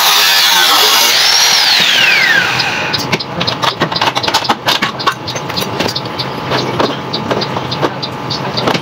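Electric hand drill boring through an aluminium gate frame to make the lock-cylinder hole, then winding down about two and a half seconds in with a falling whine. After it stops, a run of irregular light clicks and taps.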